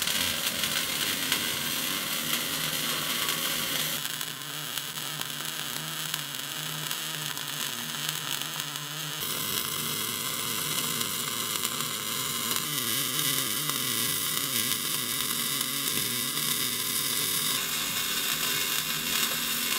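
MIG/MAG welding arc running on Migatronic's Intelligent Arc Control, a modified short arc, while a root pass is welded downhill on a steel pipe joint: a steady hiss whose tone shifts slightly several times.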